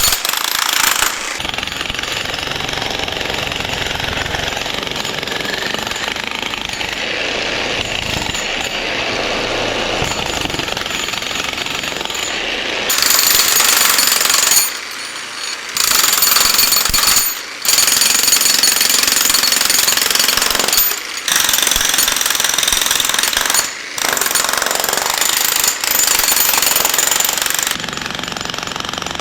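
Electric 35-pound Harbor Freight jackhammer breaking concrete, hammering continuously. It gets louder about halfway through, with four short breaks between bursts.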